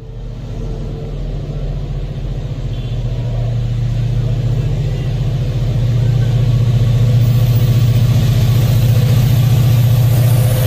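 WDP4D diesel-electric locomotive's EMD 16-cylinder two-stroke diesel engine running under power as the train approaches, a steady low engine note growing steadily louder. Near the end the hiss of wheels on rail rises as the locomotive draws close.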